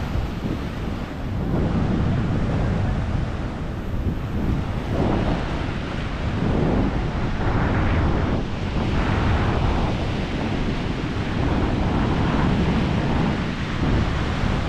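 Ocean surf breaking and washing up a beach, surging and easing every second or two, with wind buffeting the microphone.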